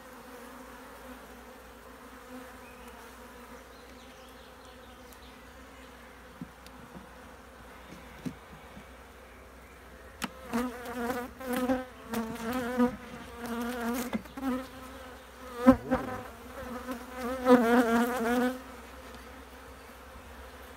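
Honeybees buzzing at an opened hive: a steady hum, which from about halfway in turns louder, wavering in pitch, in repeated bouts. A few sharp knocks sound through it, the loudest late in the buzzing.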